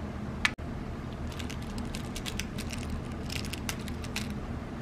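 Light clicks and clinks of .22 hollowpoint airgun pellets being picked out of a metal tin and set down on a digital scale, over a steady low hum. A single sharp click about half a second in, with a momentary dropout after it.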